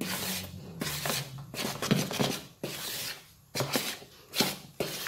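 A spatula folding and scraping thick cake batter around a plastic mixing bowl, in a series of short rubbing, swishing strokes.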